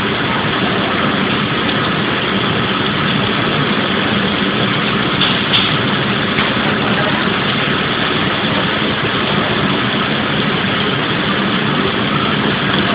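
Steady kitchen noise: bacon-wrapped asparagus rolls frying in a skillet on a gas range, over a low steady hum.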